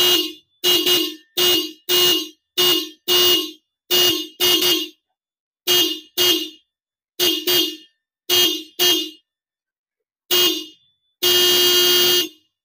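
A pair of Bajaj Pulsar-type electric disc horns, wired through a relay, sounding together as a string of short beeps, mostly in quick pairs, then one longer blast near the end. The relay wiring works and the horns sound healthy, which the mechanic calls very good.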